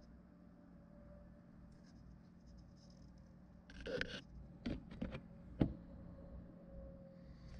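Faint handling noise: a brief scrape about four seconds in, then a few light clicks and knocks.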